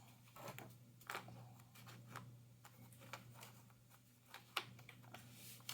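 Faint clicks and taps of jigsaw puzzle pieces being handled and fitted together, a handful of short sharp ones spread over a few seconds.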